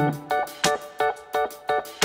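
Background music: short plucked or keyboard-like notes repeating in a steady rhythm, about three a second.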